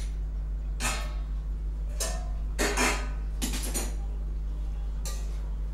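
A stainless-steel plate lid clinking against an iron kadhai as it is pried off with a knife and set down on the stove, about six short metallic clinks, over a steady low hum.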